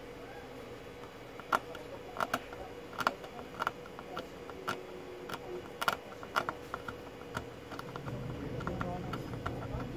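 Soldering iron on a circuit-board solder joint: irregular sharp clicks and crackles, typical of rosin flux spitting as the solder melts, starting about a second and a half in. A faint steady hum runs underneath.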